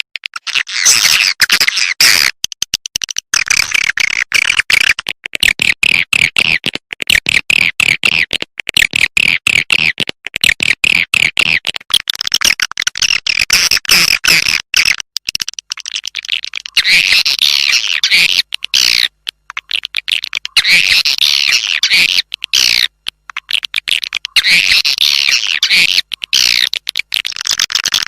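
Swiftlet lure call: dense, high-pitched twittering chirps of swiftlets in rapid pulsing runs broken by brief gaps. It is the recorded call that swiftlet farms play to draw birds into their nesting houses.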